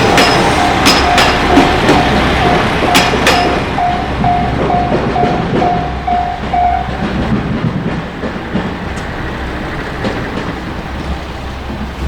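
Level-crossing warning bell ringing its fast electronic 'kan-kan' beat, stopping about seven seconds in, over a passing train. The train's wheels click over the rail joints in the first few seconds and its rumble fades away.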